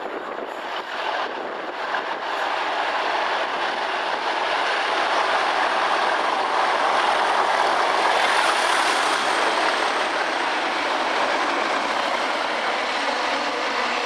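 Two Class 37 diesel locomotives, 37422 and 37424, pass at the head of an engineering train. The engine and wheel noise builds as they approach and is loudest about eight seconds in as they go by, with a brief high whine, then it carries on steadily as the train runs past.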